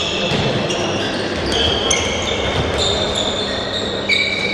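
Several handballs bouncing on a sports hall floor as players move about, with short high squeaks of sports shoes on the court.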